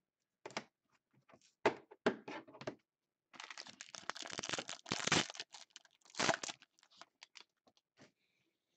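A foil-wrapped trading-card pack being handled and torn open. There are scattered taps and clicks at first, then a longer stretch of tearing and crinkling wrapper from about three to five seconds in, and a shorter burst a second later.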